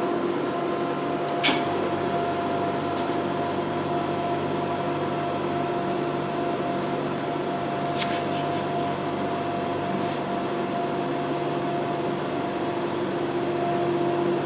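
Vacuum massage machine's pump running with a steady hum while its medium handle works on the arm. A few short clicks come about a second and a half in, near the middle, and two seconds later.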